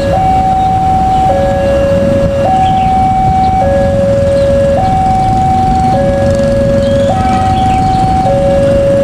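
Two-tone electronic level-crossing warning siren, alternating evenly between a higher and a lower tone, each held a little over a second, over the low rumble of an approaching diesel train.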